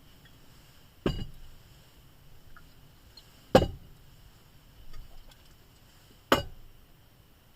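Three sharp knocks, evenly spaced about two and a half to three seconds apart, each dying away quickly.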